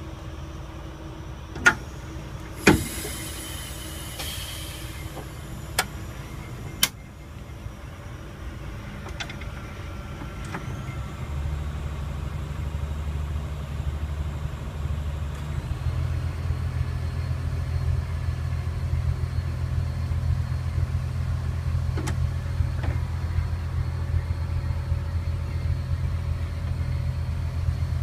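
Budd RDC's two-stroke Detroit Diesel engine running warm under load as the rail car moves off. It makes a steady low drone that grows louder about eleven seconds in and again about five seconds later. Several sharp clicks and a brief hiss come near the start.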